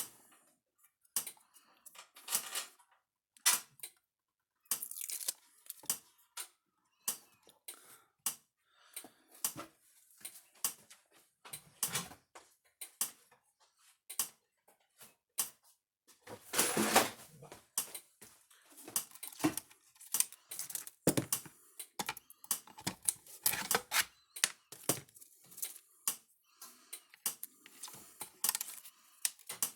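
Irregular clicks, clacks and light knocks of hard parts and tools being handled on a workbench, with a longer scraping, rattling stretch about two-thirds of the way through.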